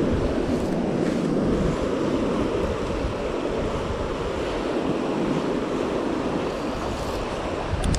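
Fast, riffled river water rushing steadily past, an even wash of water noise, with some wind buffeting the microphone.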